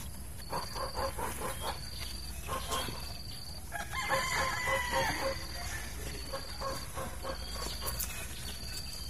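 A rooster crowing about four seconds in, with short clucking calls around it. A short high chirp repeats every second or so in the background.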